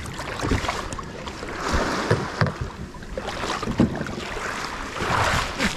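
Irregular knocks and rustling from handling a fishing kayak, over steady wind noise on the microphone.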